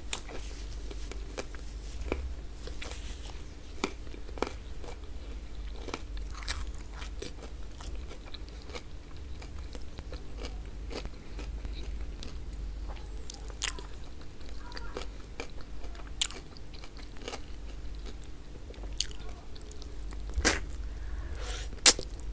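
Close-miked chewing and biting of oxtail stewed in tomato sauce, eaten with the fingers, with scattered sharp clicks. The two loudest clicks come near the end, over a steady low hum.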